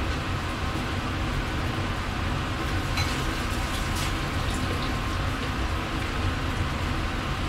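Steady low hum and hiss of ventilation and machinery in a ship's galley, with a few faint clicks about three and four seconds in.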